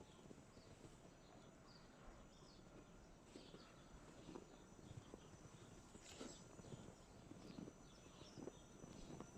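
Near silence: faint outdoor ambience with scattered soft ticks and small chirps.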